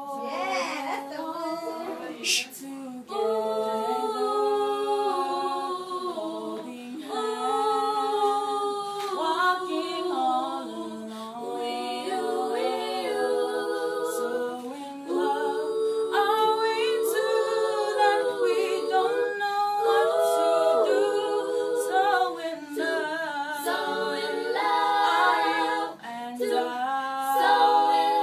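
Five young girls singing a song together a cappella, without accompaniment.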